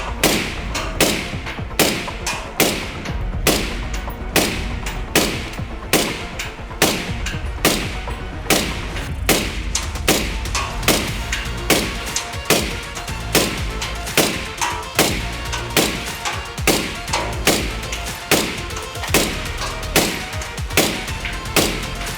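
Suppressed 5.56 NATO rifle firing steady single shots through a B&T Print-X SRBS-Ti 3D-printed titanium suppressor, about one shot a second, each with a short ring. This is one magazine of a sustained-fire heat test on the suppressor.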